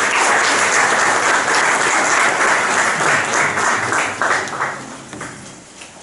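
Audience applauding, dying away about five seconds in.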